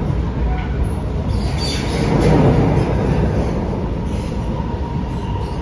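Cabin noise of an Alstom Movia R151 metro train running on the line: a steady rumble of wheels on rail that swells about two seconds in.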